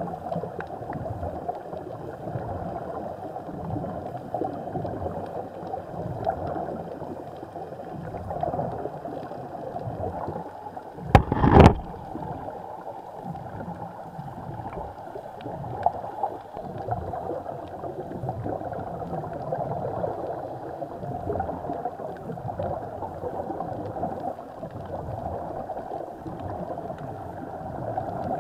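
Muffled underwater noise through an action camera's waterproof housing: a continuous gurgling rush of water and air bubbles, with one loud knock about eleven seconds in.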